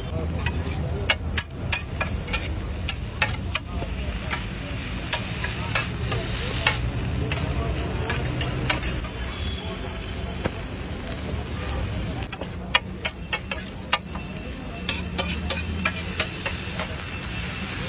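Food sizzling on a hot street-food griddle, with a metal spatula tapping and scraping against the pan many times over the hiss.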